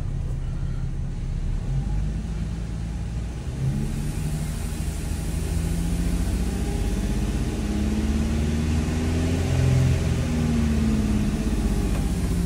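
2012 Infiniti M37x's 3.7-litre V6 held at raised revs on the throttle, its pitch climbing about four seconds in and easing back down near the end. The engine is being revved to circulate coolant and purge trapped air bubbles from the cooling system after a radiator replacement.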